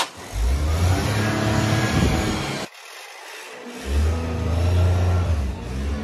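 Maruti Suzuki 800's small three-cylinder petrol engine running with the revs held up. It drops away briefly about halfway, then picks up again.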